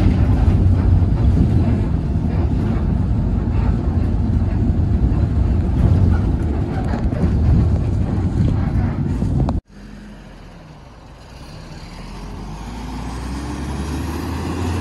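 Inside a 2011 city bus under way: a loud, steady low engine and road rumble from an engine the uploader finds rough and rather noisy. About two-thirds through it cuts off abruptly to a quieter roadside, where a bus engine rises in pitch and grows louder as the bus pulls away from a stop.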